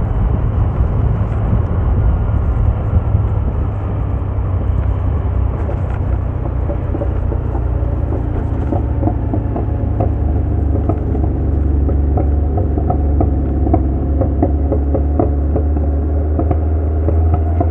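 Vehicle running on the road, heard on board: a steady low rumble of engine and road noise, with the engine's tones coming through more clearly in the second half.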